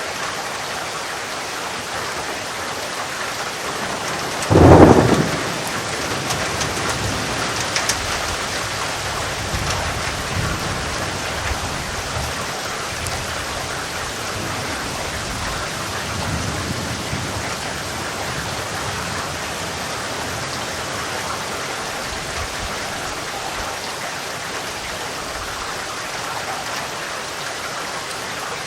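Steady heavy rain with a sudden loud thunderclap about four and a half seconds in, followed by low thunder rumbling that fades away over the next several seconds.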